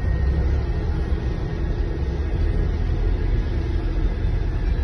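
Motor vehicle running, a steady low rumble of engine and road noise.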